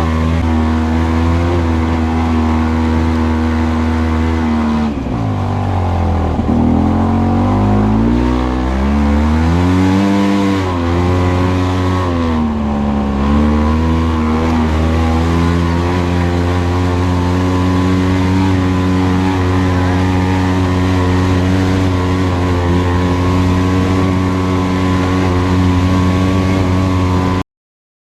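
Vehicle engine running loud and continuous, its pitch dipping and rising several times between about five and fourteen seconds in as it changes speed, then holding steady. The sound cuts out abruptly near the end.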